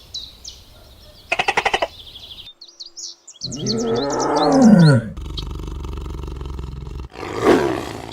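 Small birds chirping with a rapid trill, then a big cat's loud roar with a falling pitch about three and a half seconds in, followed by a steadier low rumble and a short harsh burst near the end.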